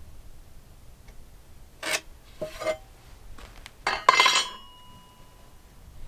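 A metal hand tool clinking and scraping against a wooden timber in a handful of sharp strikes, the loudest about four seconds in, followed by a short metallic ring that dies away.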